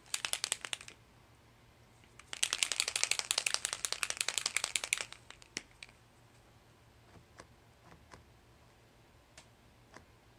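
Pilot paint marker being shaken hard in two bouts, its mixing ball rattling rapidly inside the barrel to mix the paint. This is followed by a few single light clicks as the tip is pressed down to prime the ink flow.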